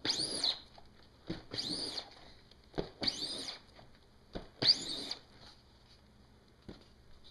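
Squeegee dragged across a silk-screen's mesh in four strokes about a second and a half apart, each starting with a knock and scraping with a squeak as ink is pulled through the screen onto the shirt.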